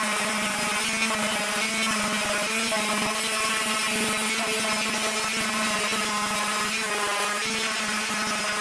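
Random orbital sander running steadily with a constant hum, its pad rubbing over a mahogany and ash surface.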